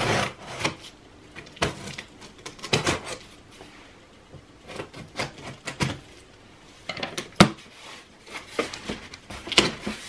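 Scissors cutting the packing tape along a cardboard box's seam, a run of uneven scrapes and clicks, followed near the end by the cardboard flaps being pulled open, with a few sharp clicks among them.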